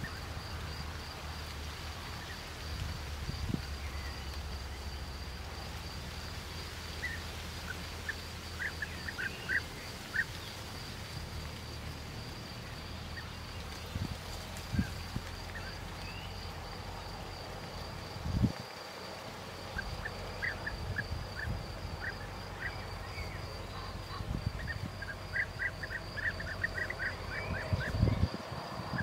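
Outdoor field ambience: a steady, high, finely pulsing insect trill, with short bursts of rapid chirping calls three or four times. Under it a low rumble with a couple of louder thumps, about two-thirds in and near the end.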